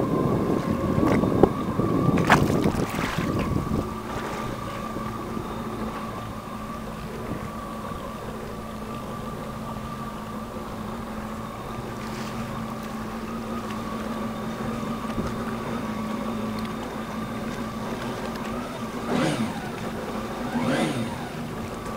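Jet ski engine running at a steady pitch. For the first few seconds there is splashing and wind buffeting the microphone, with a couple of sharp knocks. Near the end come two brief swoops that dip and rise in pitch.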